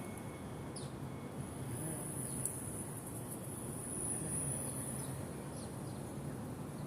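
Insects trilling in a steady, very high-pitched drone that swells and fades, with a few short, quick bird chirps and a low steady hum underneath.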